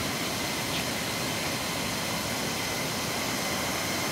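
Mountain stream water rushing steadily, a continuous even roar with no breaks.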